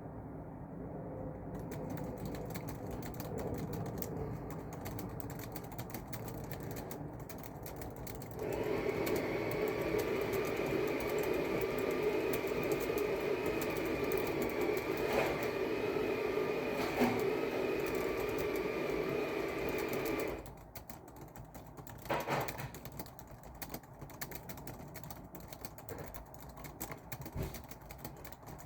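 Typing on a keyboard, a steady patter of key clicks. About eight seconds in, a loud steady mechanical hum starts abruptly, runs for about twelve seconds and then cuts off suddenly.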